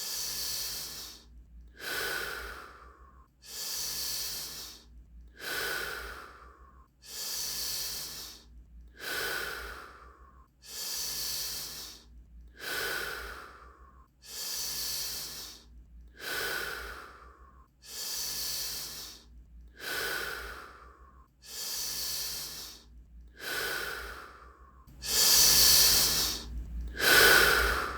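A person taking deep, even breaths in and out in a steady rhythm, about one every two seconds: a round of Wim Hof power breathing. The last two breaths are louder.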